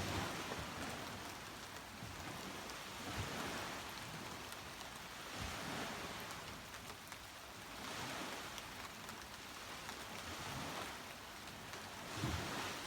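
Steady rain falling on a beach, with surf washing in underneath and a few brief low surges.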